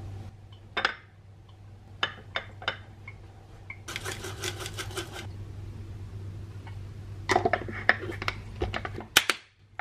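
Glass lunch-box packing: a few light clicks and knocks, then a seasoning shaker rattled over rice for about a second, fast and even. Near the end comes a cluster of clicks as the snap-lock lid is pressed down and its clips latched, the last click the loudest. A steady low hum runs beneath.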